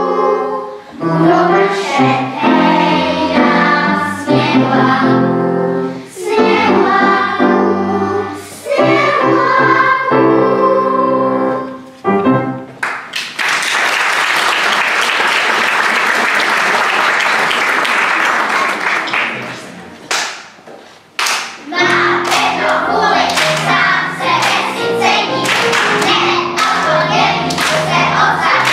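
Singing with accompaniment ends about twelve seconds in. Audience applause follows for about seven seconds, trailing off into a few single claps. About two seconds later the next song begins, singing over accompaniment.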